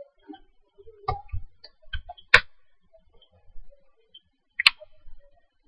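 Computer mouse clicking: about four single sharp clicks, spaced one to two seconds apart, with faint low bumps between them.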